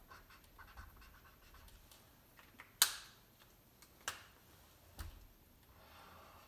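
Marker scratching faintly on chart paper, broken by three sharp clicks a second or so apart, the first the loudest, as marker caps are snapped off and on to change colours.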